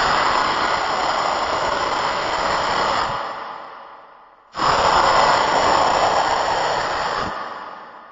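Two synthesized monster growls made in FL Studio, each starting suddenly, holding loud and rough for a few seconds, then fading away slowly.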